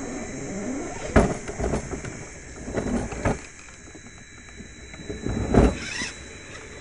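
Scale RC rock crawler (Jeep Wrangler Rubicon JK hard body on a CJ10 chassis) climbing over rock, its tyres and chassis knocking and scraping against the stone. There are about five separate knocks, the loudest a little after five and a half seconds in.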